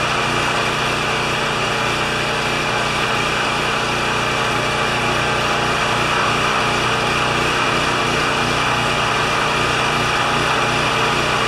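A 3000-watt Champion portable generator's small single-cylinder engine running steadily at a constant governed speed.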